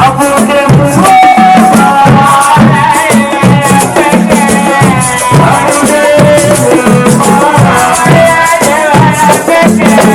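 Loud music with a steady beat, shaker-like percussion and a melody over it.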